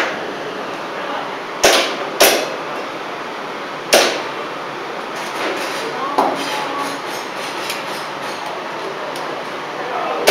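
Airsoft pistol shots: four sharp cracks, two of them close together about two seconds in and another about four seconds in, followed by faint scattered clicks.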